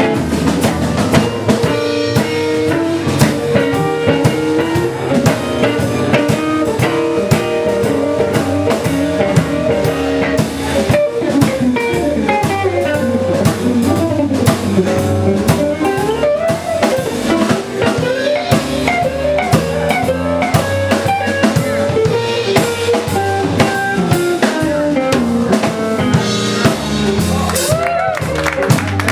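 A band playing: a drum kit keeping a steady beat with rimshots under a guitar, with pitched notes that bend up and down above them.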